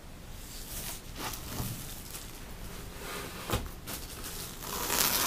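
Clear plastic sleeve on a new fishing rod rustling and crinkling as the rod is handled and unwrapped, with a few light knocks. The rustling grows louder near the end.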